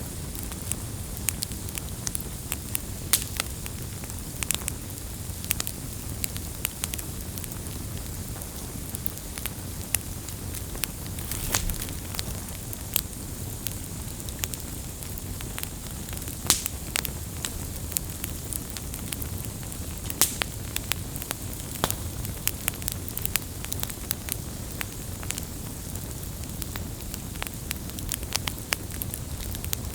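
Campfire burning steadily with a low rumble and frequent sharp, irregular crackles and pops of the wood.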